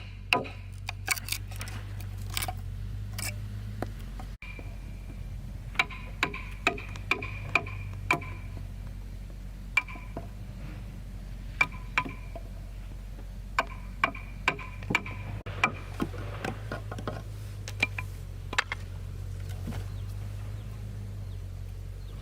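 Irregular sharp knocks from hand tools striking wood, about one or two a second, some with a short ringing tone, over a steady low hum.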